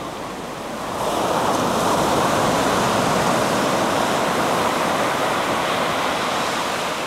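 Ocean surf breaking and washing up the beach. The rush of a wave swells about a second in, then slowly eases.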